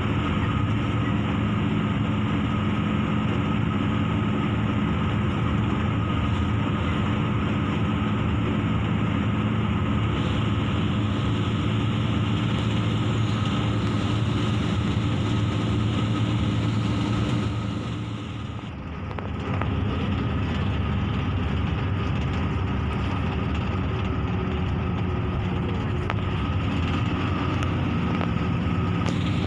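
Intercity bus running at highway speed, heard from the driver's cab: a steady low engine drone with road and tyre noise. The engine sound drops for about a second about two-thirds of the way through, then picks up again, and its pitch shifts near the end.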